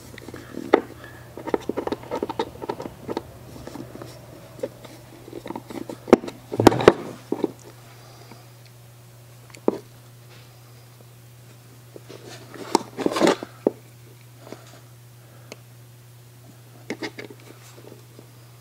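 Small metal parts and a screwdriver clicking and scraping against a Winchester 1892 double set trigger assembly as its screw is lined up against spring pressure: scattered light clicks, with louder clusters about a third of the way in and again about two-thirds through. A steady low hum runs underneath.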